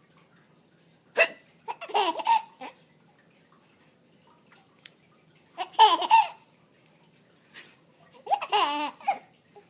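A 4.5-month-old baby laughing in three separate bursts, each opening with a short, sharp hiccup sound.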